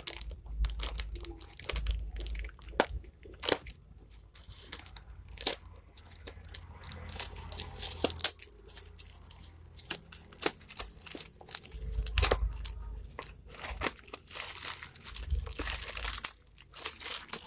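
Plastic courier mailer and packing tape being cut with scissors and torn open by hand: irregular crinkling and tearing of plastic with sharp snips and clicks.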